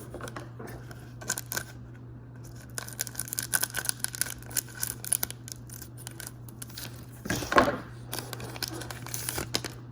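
A foil trading-card pack being opened and its cards handled: crinkling, scratchy tearing and small clicks, with the loudest noisy burst about seven and a half seconds in.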